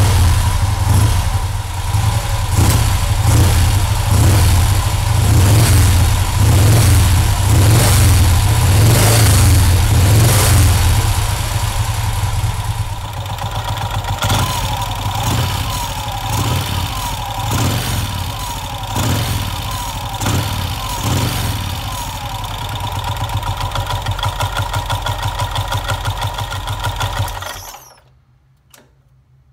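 1951 Vincent Rapide's 998 cc V-twin running on its stand with the clutch exposed: loud throttle blips for the first dozen seconds, then a quieter steady idle. The engine is switched off and stops a couple of seconds before the end.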